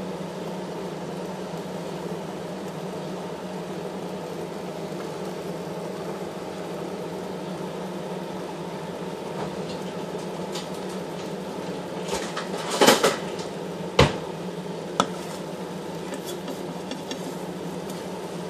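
A steady kitchen hum, with a short run of dish and utensil clatters about two-thirds of the way through, the loudest two close together and one lighter click a second later.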